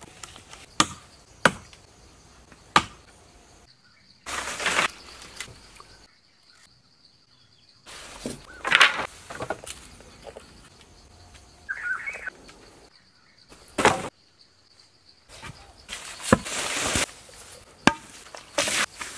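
Three sharp chopping knocks in the first three seconds, then several bursts of scraping and rustling as poles, sticks and earth are worked by hand. A faint steady high insect tone runs underneath until the last few seconds.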